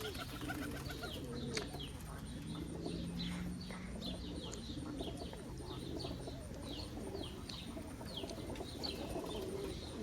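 Domestic pigeons cooing, low and wavering, with short high chirps repeating several times a second over it.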